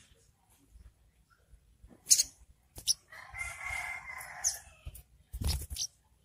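Olive-backed sunbird (songgo ontong) giving short, sharp, high-pitched chirps of its 'ngriwik' call, several times, spaced out. A longer, lower drawn-out call from another animal runs for nearly two seconds from about three seconds in, and a low thump comes near the end.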